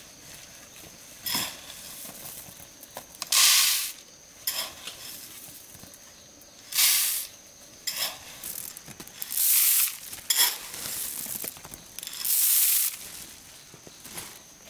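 Dry corn kernels poured by the bowlful into a plastic basket: short rattling, hissing pours of about half a second, four loud ones with smaller rattles of kernels being scooped in between.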